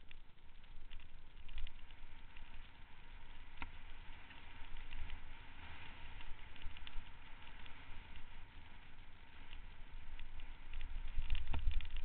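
Mountain bike rolling down a dirt trail: tyres crunching over dirt and gravel with scattered rattles and sharp clicks from the bike, and wind rumbling on the microphone, heavier near the end.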